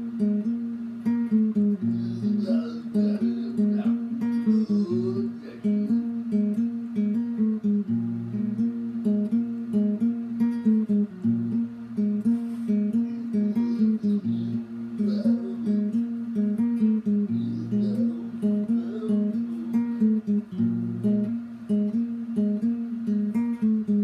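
Acoustic guitar picked in a steady repeating pattern, a run of higher notes with low bass notes every few seconds.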